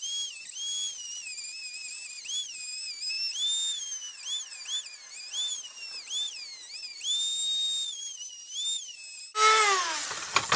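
High-speed rotary tool with a cutoff wheel grinding into a pinned AR-15 muzzle brake. Its high whine dips and recovers in pitch again and again as the disc bites into the metal. Near the end the pitch falls away steadily and stops.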